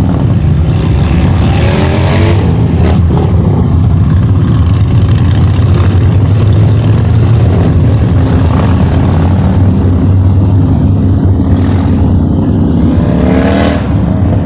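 Motorcycle engine running with a low, steady rumble, revved up twice: about two seconds in and again near the end.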